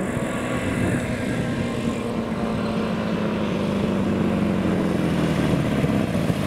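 Harley-Davidson Sportster 1200's V-twin engine running as the motorcycle rides up the road toward the listener, growing louder as it nears.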